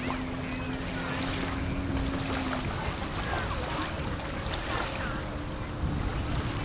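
Outdoor lakeshore ambience: wind rushing over the microphone with water, under a steady low hum that drops out about two and a half seconds in and returns near the end, and faint high chirps.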